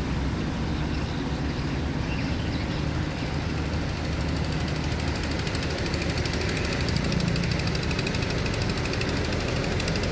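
A boat engine running steadily under power, with a fast, even knocking chug.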